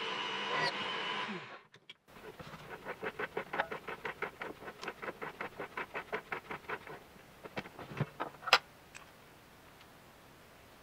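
Drill press running with a countersink bit, its motor winding down about a second and a half in. Then a rapid, even run of light clicks, about five a second, for around five seconds, followed by a few sharper separate clicks, the loudest near the end.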